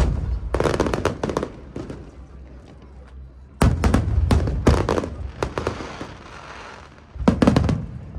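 Aerial fireworks bursting in three volleys of rapid bangs, about three seconds apart, with a low rumble lingering between volleys.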